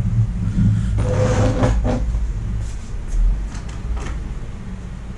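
Small clicks and knocks of a screwdriver and screw being handled on a laptop's plastic base, over a steady low rumble that slowly fades.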